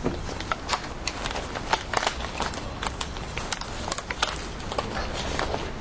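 A stack of papers being handled quickly by hand, giving many short, irregular rustles and taps over a low steady hum.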